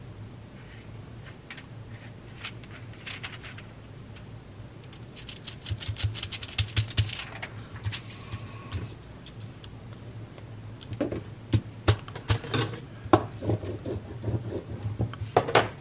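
Paper handled and pressed down by hand: soft rustles, rubs and light taps, busier from about five seconds in and again near the end, over a faint steady low hum.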